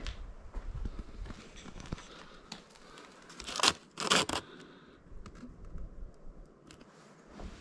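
A small sheet of lined notepad paper being picked up and handled: scattered light rustles and scuffs, with two louder crinkles about three and a half and four seconds in.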